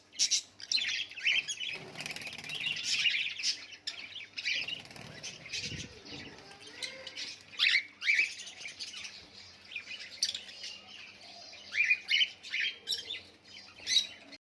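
Small pet parrots chirping and chattering continuously in quick, broken phrases, with sharp clicks here and there and a few louder chirps.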